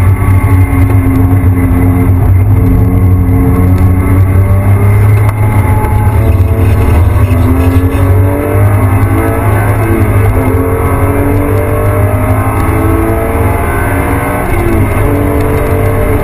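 Porsche 911 GT3 RS flat-six engine running hard at track speed, heard from inside the cabin, its pitch climbing and dropping as the car accelerates and changes gear.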